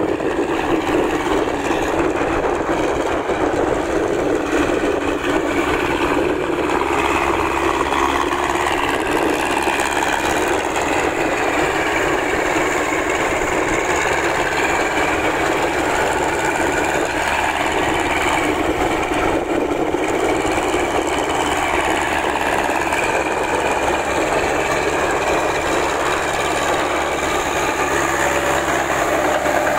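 Massey Ferguson tractor engine running steadily as the tracked tractor works through a flooded rice paddy.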